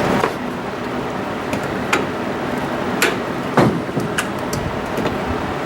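Several sharp, separate knocks and clinks of metal parts and tools being handled on a truck's front suspension, over a steady background hiss.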